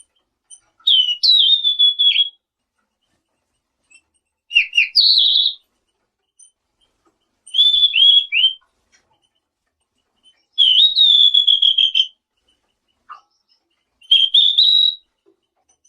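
Selendang biru (tledekan biru) songbird singing: five short whistled phrases of sliding notes and quick trills, each about a second long, repeated every three seconds or so with pauses between.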